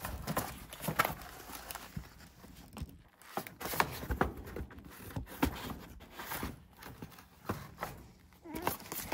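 A cat clawing and pawing at cardboard and paper: irregular scrapes, rustles and knocks, some in quick runs.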